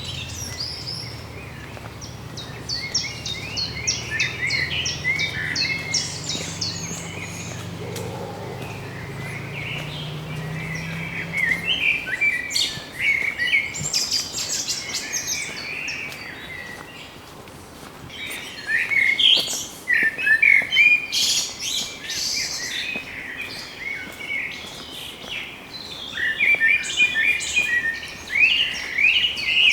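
Several birds chirping and trilling together in quick overlapping phrases, busier and louder in the second half, over a low steady hum that fades out about halfway through.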